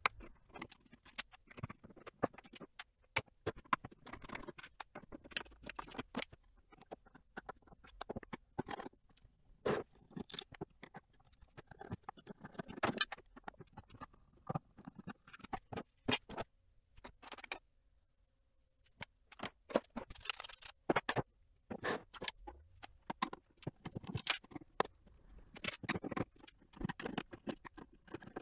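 Irregular clicks, taps and scrapes of parts being handled as an Anet A6 3D printer's frame is taken apart with a screwdriver, with a short lull about two-thirds of the way through.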